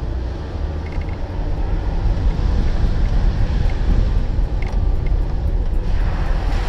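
Off-road 4x4 driving along a muddy dirt trail, its engine and tyre rumble heard up close from a hood-mounted camera, getting louder about two seconds in.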